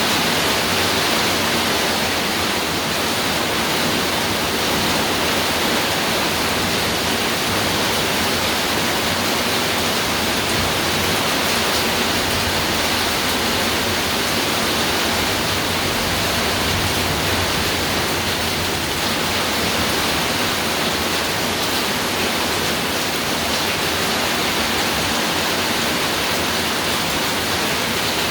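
Heavy rain pouring down steadily onto a roof, a dense, even hiss with no breaks.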